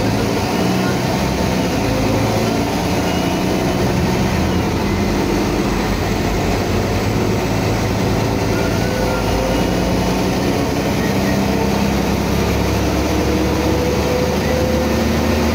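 Mercedes-Benz OM 457 inline-six diesel of an O500UA articulated city bus with a Voith automatic gearbox, heard from inside the bus while it drives. The engine runs under load, its pitch changing several times.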